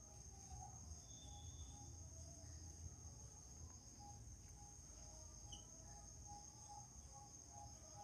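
Near silence: faint room tone with a steady high-pitched whine, and faint regular chirps about two or three a second in the second half.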